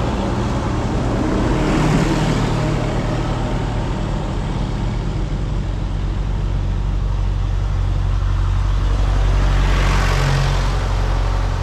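Vintage tractor engines running as tractors drive past one after another. One passes close about two seconds in and a blue Ford tractor passes close around ten seconds in, each bringing a swell of engine and tyre noise over a steady low engine drone.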